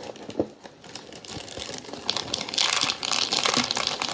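Plastic cereal bag crinkling as it is handled and pulled open, growing loud from about two seconds in.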